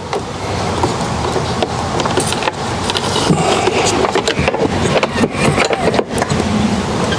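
Rustling and scraping with many small clicks as wiring and plastic parts are handled and pushed down inside a car door.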